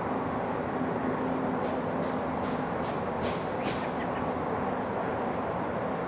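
Steady outdoor background noise with a faint low hum, and one short, falling bird chirp a little past the middle.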